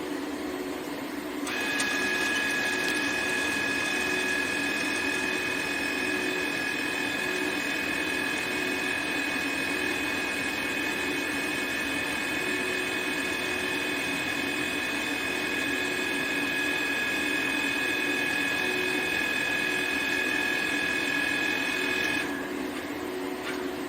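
Rebar cage welding machine running: a steady high whine with a rushing noise starts about a second and a half in and cuts off near the end, over a constant low machine hum.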